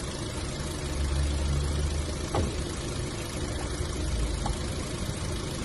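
Car engine idling with a steady low hum, and a single light tap about halfway through.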